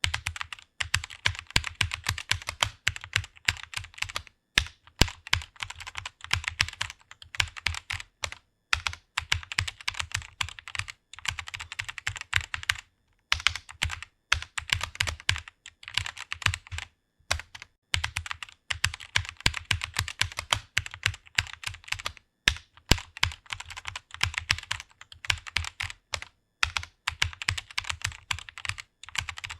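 Computer keyboard being typed on quickly, a fast stream of key clicks in runs of a few seconds broken by short pauses.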